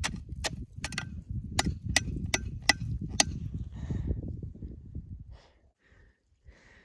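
A climber moving on icy snow: a quick irregular series of sharp clicks as metal gear strikes hard snow and rock, about nine in the first three seconds, over a low rumble of steps and handling that dies away about five seconds in.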